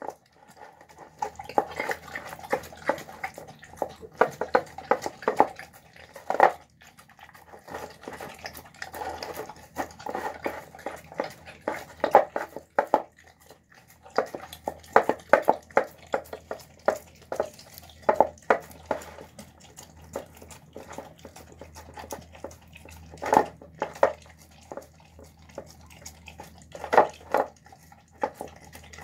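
Dog eating soft, wet food from a plastic bowl: an irregular run of wet smacking, licking and chewing, with a few louder clicks scattered through.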